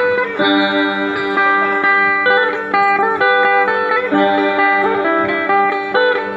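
Sape, the Bornean boat-shaped lute, playing a melody of quick plucked notes.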